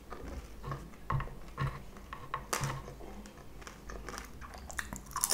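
Close-miked chewing of french fries: soft, wet mouth sounds with scattered clicks and smacks.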